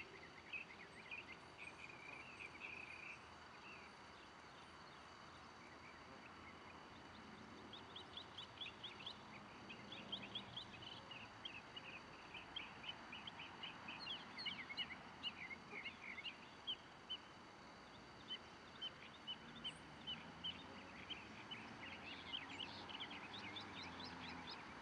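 Small birds chirping faintly in quick series of short, high notes, coming in several bursts over a low steady outdoor background.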